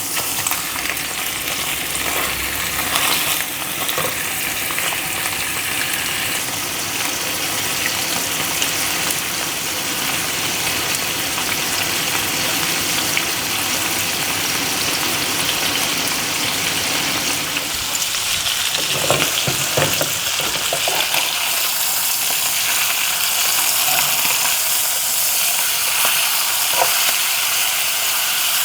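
Rump steaks frying in butter in a hot frying pan: a steady, loud sizzle. There are a few brief clatters about two-thirds of the way through.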